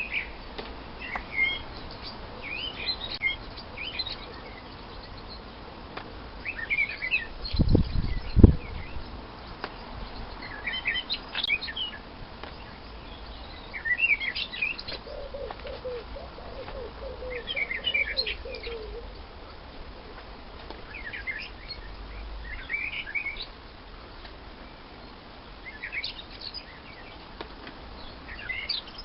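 Small birds chirping in short bursts every second or two, with a couple of low thumps about eight seconds in.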